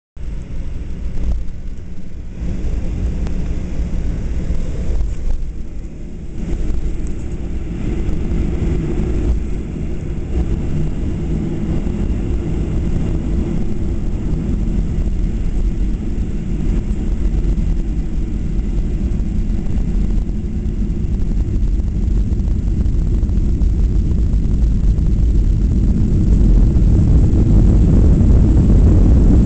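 Boeing 737-800 cabin noise on the ground: the low, steady rumble of its CFM56 jet engines and airframe, heard from inside the cabin and slowly growing louder, loudest near the end.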